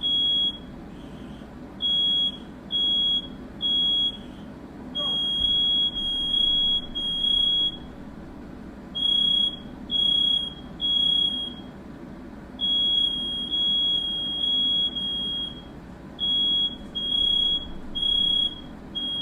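Smoke alarm beeping in repeated groups of three high, shrill beeps with a short pause between groups: the temporal-three fire-alarm pattern. It was set off by smoke from a firework lit indoors.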